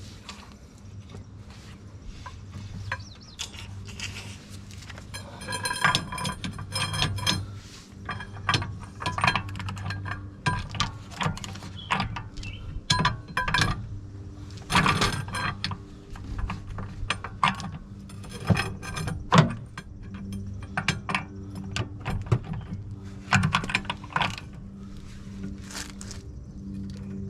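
Hand tools working on metal car parts: a long run of irregular metallic clinks, knocks and taps, with ratchet-like clicking and a few strikes that ring briefly.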